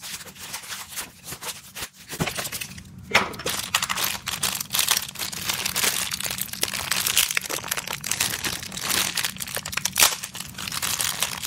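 Thin clear plastic packaging crinkling and rustling as it is cut open with scissors and pulled off the parts of a Beyblade spinning top. Two sharper cracks stand out, about three seconds in and near the end.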